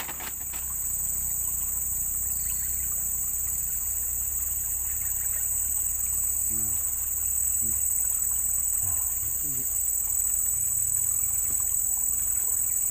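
Steady, unbroken high-pitched drone of a chorus of insects, with a low rumble under it.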